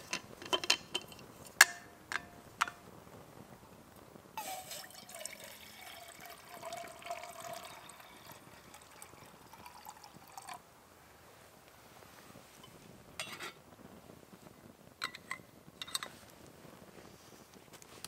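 A few sharp metal clinks, then liquid poured into a stainless steel pot on a small camp stove for about six seconds, stopping abruptly, followed by a few light clicks.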